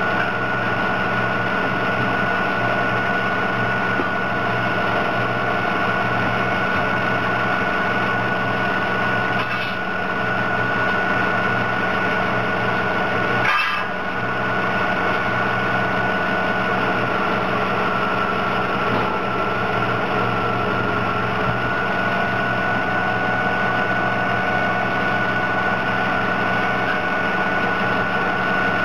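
Heavy diesel engine idling steadily, with a constant high whine over the low hum. A single short click sounds about halfway through.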